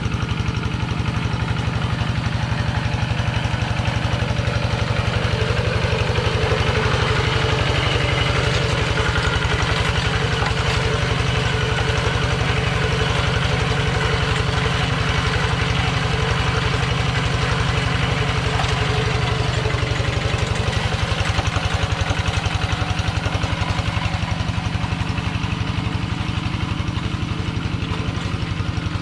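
Kubota two-wheel hand tractor's single-cylinder diesel engine running steadily with an even, rapid chug while it pulls a plough through wet paddy mud.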